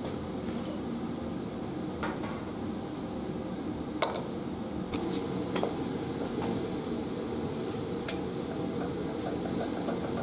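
A few light knocks and clicks of glassware being handled, with one sharp ringing glass clink about four seconds in, the stir bar going into the glass Erlenmeyer flask. A steady fume-hood fan hum runs underneath.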